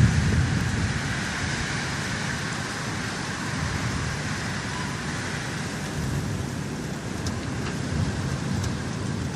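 Storm wind and rain: a steady rushing noise with gusty low rumbling, strongest at the very start.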